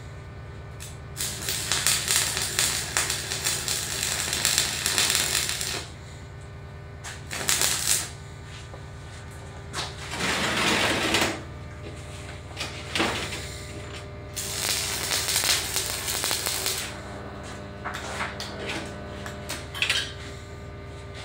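Stick (MMA) arc welding: the electrode's arc crackles and sizzles in bursts of one to several seconds as the rod is struck, run and broken off, over a steady low hum.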